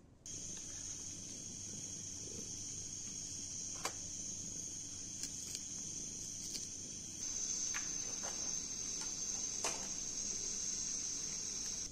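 Crickets trilling steadily in one high pitch, a little louder about seven seconds in, with a few short sharp taps scattered through.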